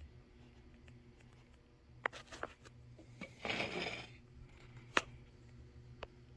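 Small handling noises: a few sharp clicks and a short scraping rustle in the middle, over a steady low hum.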